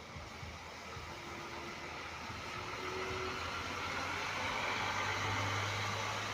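A bus engine running and growing steadily louder as the bus approaches, its low hum strongest past the middle. A steady hiss of rain runs underneath.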